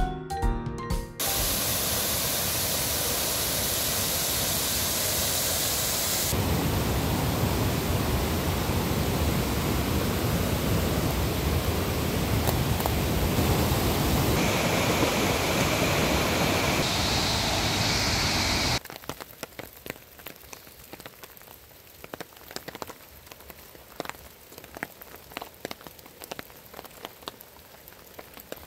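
Waterfall on a mountain stream: water rushing in a loud, steady hiss. About 19 seconds in it gives way to a much quieter, irregular patter of falling drops in the forest.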